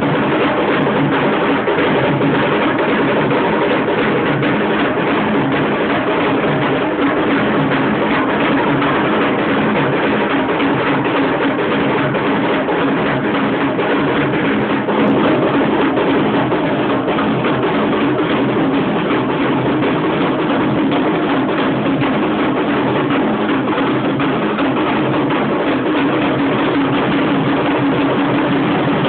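Loud, continuous traditional drumming and percussion, driving the music for a palkhi (palanquin) dance, dense with strokes and without a break.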